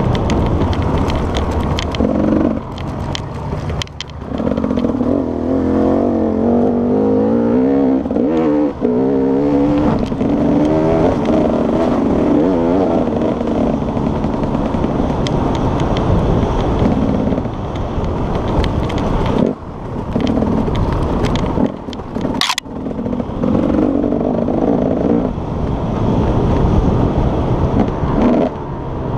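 Enduro motorcycle engine heard from on board while riding a dirt track, revving up and easing off again and again, its pitch rising and falling with throttle and gear changes and dropping briefly several times. A single sharp knock comes about three quarters of the way through.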